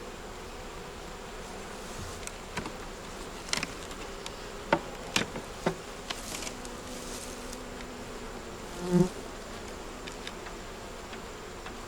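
Honey bees buzzing around an open hive, steady, with a few sharp clicks between about two and six seconds in. A brief louder buzz about nine seconds in, as from a bee close by.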